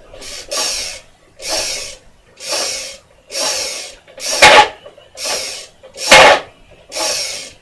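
A person's breath puffing close to the microphone in a steady rhythm, about one breath a second, three of them louder.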